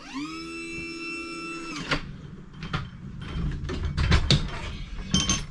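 An electric motor whines for nearly two seconds, rising quickly to a steady pitch and then cutting off. After that an ambulance gurney rolls into the patient compartment with clunks, clicks and rattling.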